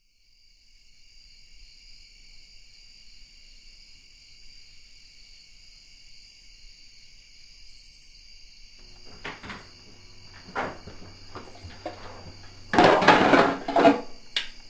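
Steady high-pitched insect-like chirring, like crickets. From about nine seconds in come scattered knocks over a low hum, and near the end a much louder burst of clattering noise.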